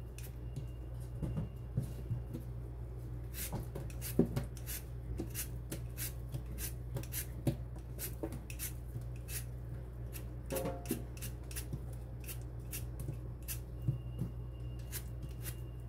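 Y-shaped vegetable peeler scraping the skin off a raw potato in quick, irregular strokes, over a steady low hum.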